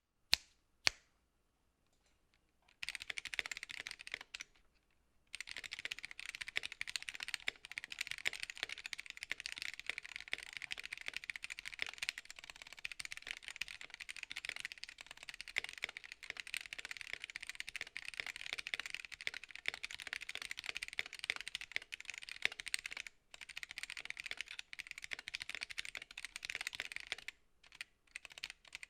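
Typing on a Gamakay K61 hotswap mechanical keyboard with Gateron Yellow linear switches in a layered acrylic case and plate, the switches still unlubed. A couple of single keystrokes and a short burst come first, then fast continuous typing from about five seconds in, with brief pauses near the end.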